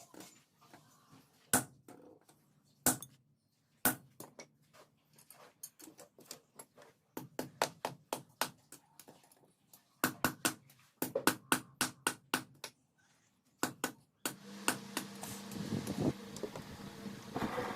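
Hammer striking metal on an anvil in irregular runs of sharp, ringing blows while a khukuri blade is forged. About 14 seconds in, a motor starts up with a steady hum under the blows.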